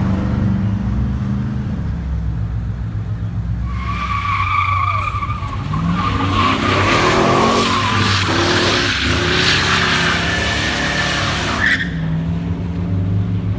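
A V8 car doing a burnout: its tyres squeal and spin for about eight seconds while the engine revs, then the squeal stops suddenly and the engine drops back to a steady idle. A burnout like this heats the tyres for grip before a drag launch.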